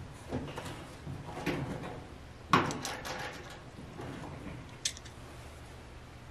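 Knocks and clicks of a hand and a screwdriver working at the power-cord terminal block on a dryer's sheet-metal back panel. A sharper knock comes about two and a half seconds in, and a short click near five seconds.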